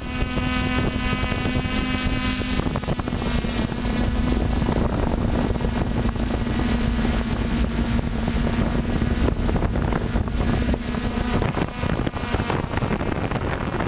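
Multirotor drone's electric motors and propellers humming steadily in a hover, picked up by the drone's onboard camera, under heavy wind rumble on the microphone. The hum's pitch line fades near the end.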